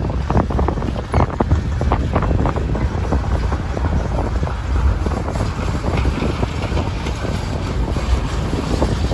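Freight train rolling past with a steady low rumble and irregular clattering, thickest in the first couple of seconds, and wind buffeting the microphone.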